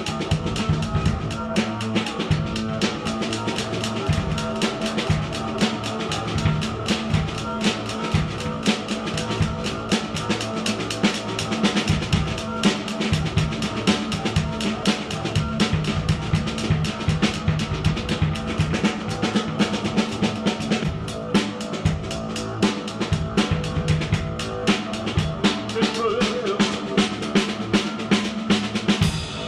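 Live noise music from a Casio keyboard and drum kit duo: the drums play a busy, steady beat over a droning keyboard tone that holds one pitch.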